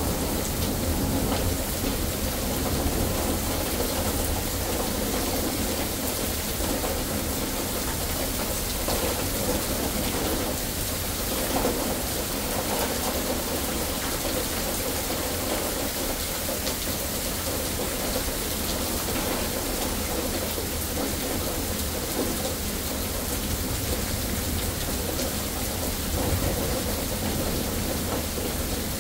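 Steady rain falling during a thunderstorm, with a low rumble of thunder underneath.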